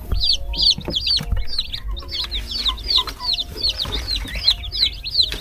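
A brood of newly hatched chicks peeping continuously: many short, high cheeps that fall in pitch, several a second and overlapping.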